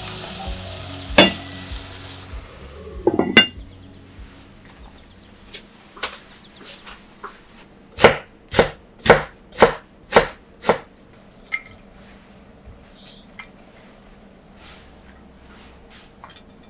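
Diced vegetables sizzling in an enamelled cast-iron pot as they are stirred with a wooden spoon, with a few loud knocks of the spoon against the pot. Then a kitchen knife slicing yellow bell pepper on a wooden cutting board: six firm chops about half a second apart, followed by fainter scattered taps.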